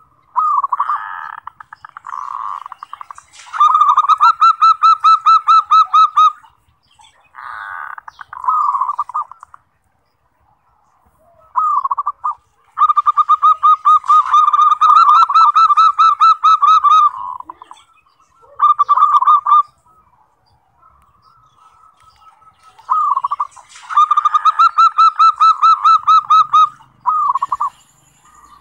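Zebra dove (perkutut) singing: phrases of rapid, trilling coo notes, three long bouts of a few seconds each, roughly ten seconds apart, with shorter coos leading into each.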